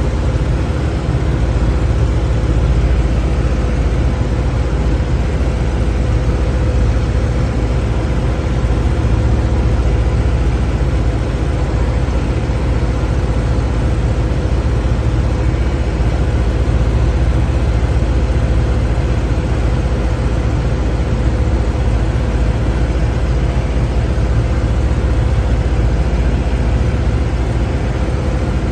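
Light aircraft's piston engine and propeller running steadily in cruise, heard from inside the cockpit, with a constant low drone and a faint steady whine.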